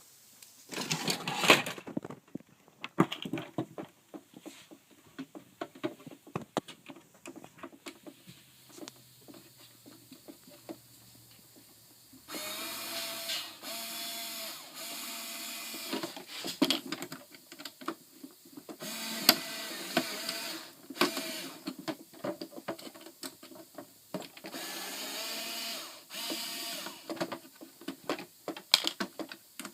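Cordless power screwdriver running in three short bursts of a few seconds each in the second half, backing screws out of a robotic pool cleaner's plastic side covers. Sharp clicks and knocks of parts and screws being handled come in between.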